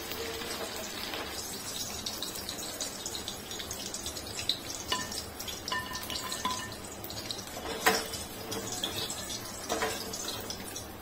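Hot oil crackling and sizzling as chicken 65 pieces deep-fry in a steel kadai, with a few sharp knocks, the loudest about eight seconds in.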